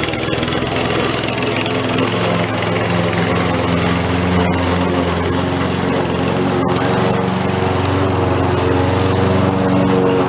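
Lawn mower engine running steadily under load while cutting grass, its pitch wavering slightly, with a couple of brief clicks about halfway through.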